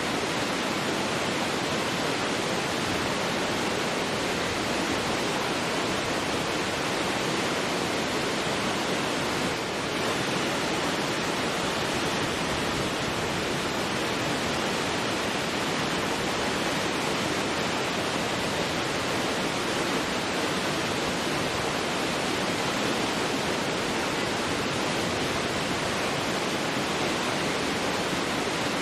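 A massive waterfall: a steady, dense rush of heavily falling water, very noisy and unchanging.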